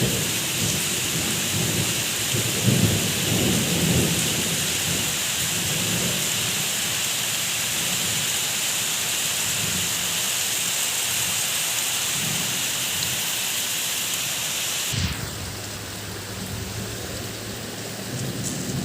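Steady heavy rain with low rolls of thunder in the first few seconds. About fifteen seconds in the sound changes abruptly to a softer, duller rain.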